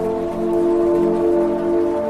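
Calm background music of long held notes forming a steady chord.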